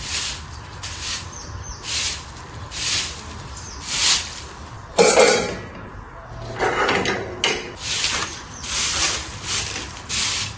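Broom sweeping bare earth in scratchy strokes about once a second. Around halfway through, a different, fuller scraping sound cuts in briefly before the strokes resume.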